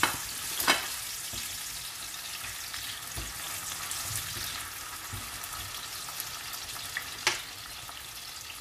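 Ground pork and chopped tomato sautéing in hot oil in a pan, a steady sizzle, with three sharp knocks: two in the first second and one near the end.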